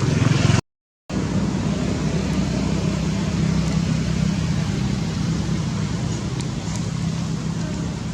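A motor vehicle engine running steadily, with a low, even drone. It drops out into dead silence for about half a second about a second in, then resumes.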